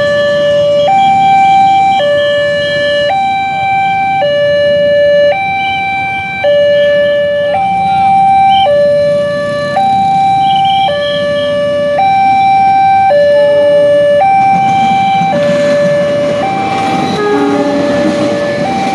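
Railway level-crossing warning alarm from the loudspeaker on the signal pole: an electronic two-tone signal switching between a lower and a higher note about once a second, sounding while the barriers are down for an approaching train. Near the end the rumble of the train's diesel locomotive reaching the crossing rises under it.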